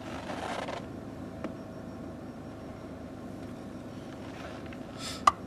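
Car engine idling, heard from inside the cabin as a steady low hum. A short rustle comes at the start, and a sharp click comes near the end.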